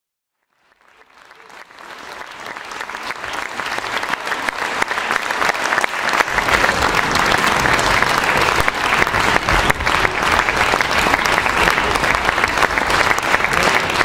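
Theatre audience applauding at a curtain call. The applause rises out of silence over the first few seconds, then holds steady as a dense wash of clapping.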